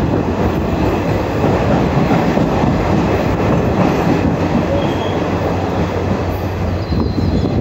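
Passenger train coach running along the rails, a steady rumble of wheels and carriage heard from the open window, with a faint high wheel squeal starting near the end.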